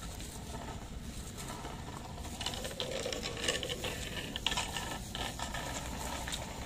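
Rapid, irregular mechanical clicking like a ratchet over a steady low rumble; the clicking grows louder about two seconds in.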